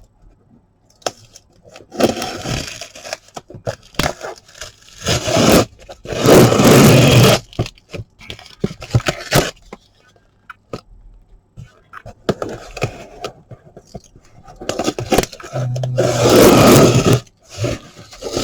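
Cardboard shipping box being opened by hand: packing tape ripped and cardboard flaps scraped and pulled, in several bursts of a second or two each, the longest and loudest about six seconds in and again near the end.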